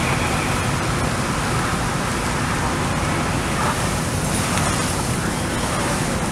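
Fire engine running steadily, a constant low engine hum under an even wash of noise.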